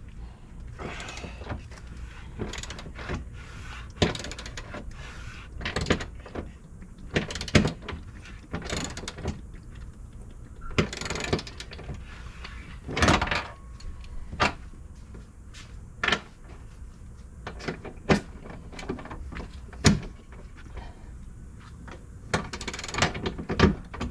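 Hand tools being handled and put to work on bolts: irregular clicks, knocks and short scrapes of metal tools, spaced a second or two apart.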